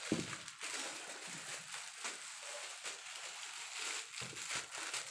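Thin clear plastic snack bag crinkling as it is picked up and handled.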